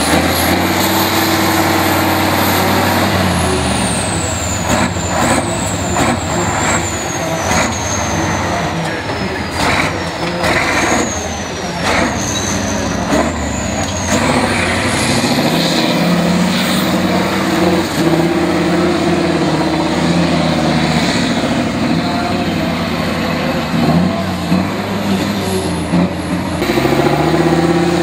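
Six-wheeled truck-trial prototype's engine labouring and revving up and down as it crawls down and climbs a steep dirt slope. A high whine falls over several seconds and then rises again, and there are several short, sharp hisses in the middle.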